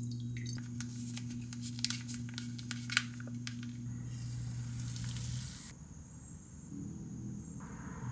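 Kitchen cooking sounds: a steady low hum under scattered crackles and clicks, then a short hiss about four seconds in. The hum cuts off partway through, and the noise rises again near the end.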